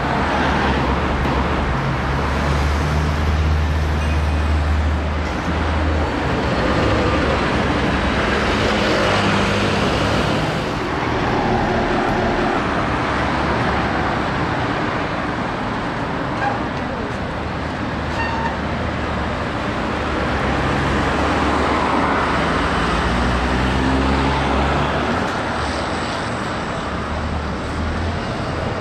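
Street traffic dominated by London double-decker buses, with low engine hum rising and falling as buses and cars pull away and pass.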